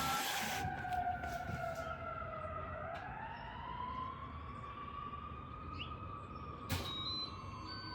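Emergency-vehicle siren wailing slowly: its pitch falls for about three seconds, rises again, then begins to fall. A sharp click sounds near the end.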